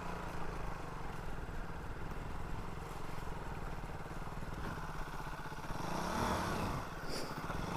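Motorcycle engine running steadily with an even, rapid firing beat, swelling slightly about six seconds in.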